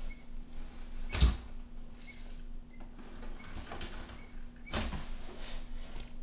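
Argus monitor lizard moving about in a plastic tub while swallowing a quail chick: two sharp knocks against the plastic, about a second in and near five seconds, with light scraping between. Faint, short high peeps recur from the live quail chicks.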